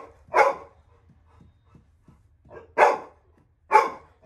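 Labrador retriever barking at a stranger in the house, the warning bark of a dog guarding its home. It gives three loud single barks spread over the few seconds, with a softer one just before the second.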